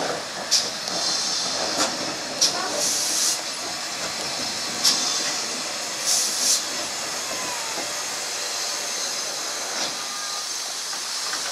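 GWR 57xx Class 0-6-0PT pannier tank No.3650 hissing steam as it moves slowly along the track. A few sharp clicks come in the first five seconds, and two short, louder bursts of hiss come about three and six seconds in.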